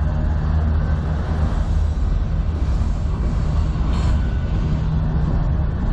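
Freight train cars, an autorack and boxcars, rolling past with a steady low rumble of steel wheels on rail. A brief clank comes about four seconds in.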